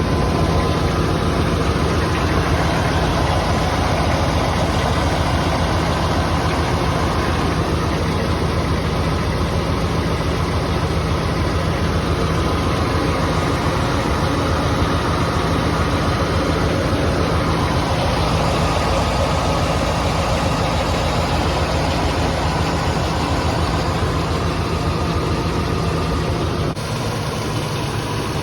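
A GM 7.4 L Vortec big-block V8 idling steadily shortly after starting, with a rhythmic knock that the owner cannot place as piston slap or bearing knock. The sound drops slightly in level near the end.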